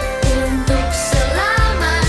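Upbeat children's praise song: a sung melody over a pop-style band with a steady drum beat.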